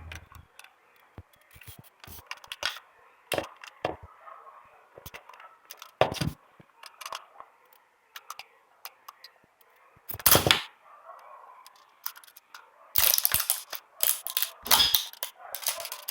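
Irregular sharp clicks, taps and crackles of small objects being handled. They are sparse at first and come thick and fast over the last few seconds.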